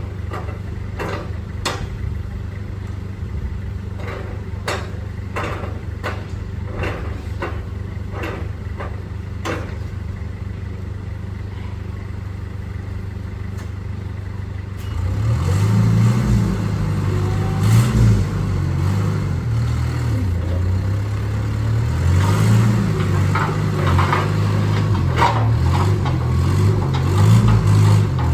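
Engine running at a steady idle with sharp clicking over it, then from about halfway revved up and down over and over.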